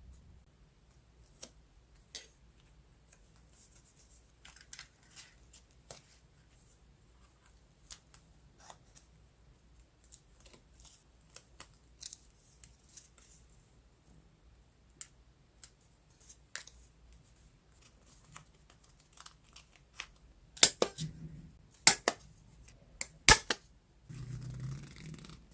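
Scissors snipping paper, with scattered small paper-handling clicks and taps. Near the end come a few much louder, sharp snips, then a brief rustle.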